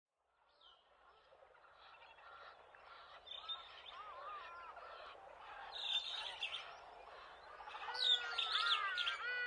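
Several birds chirping and whistling over a soft hiss, fading in from silence and growing louder, with the calls thickest near the end.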